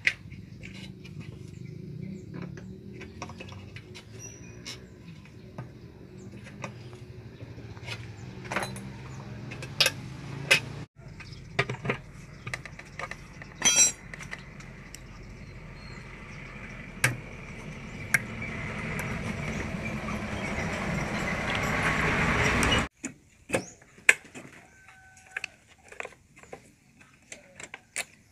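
Light clicks and knocks of plastic and metal parts and tools as a scooter's fuel pump unit and its wiring connector are fitted by hand. Under them is a steady engine hum, which grows louder for several seconds and then cuts off abruptly.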